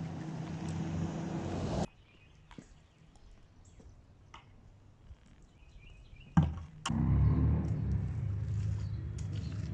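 A steady low motor hum that cuts off abruptly about two seconds in, leaving near quiet with a few light clicks. A sharp click comes a little past six seconds, and the hum starts again straight after it.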